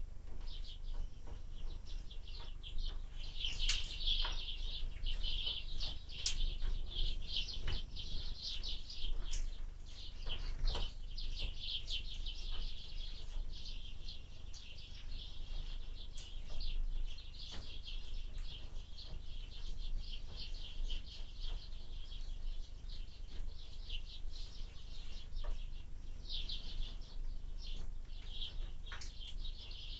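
Small birds chirping and twittering continuously at a window feeder, busiest in the first half, over a steady low rumble of wind on the microphone.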